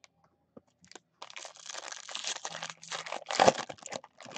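Foil wrapper of a Topps Chrome Jumbo baseball card pack being torn open and crinkled by hand. It starts about a second in, with a loud rip near the end.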